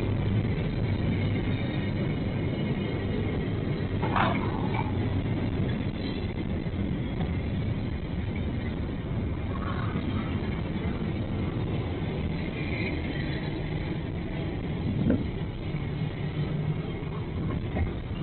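Steady low rumble of a vehicle running, with a few faint brief sounds over it.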